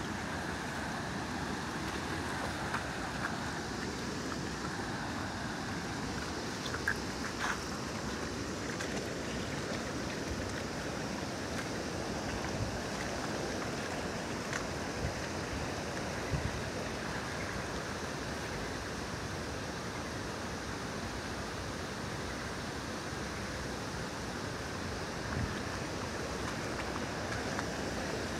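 Steady rush of river water pouring over a weir and running through shallow, stony riffles, with a few brief sharp sounds now and then.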